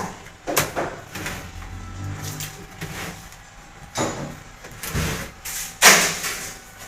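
Irregular knocks and scrapes from hand tool work: several separate sharp strikes, the loudest a little before the end.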